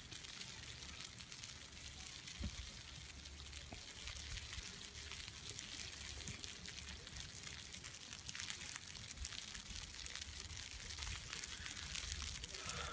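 Wind on a phone's microphone on an open chairlift in blowing snow: a steady hiss with gusty low rumbling and scattered small crackles.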